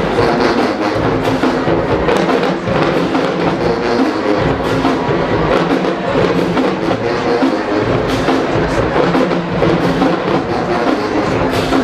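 A marching band plays its halftime show, with a steady stream of drum and percussion strokes under pitched instruments.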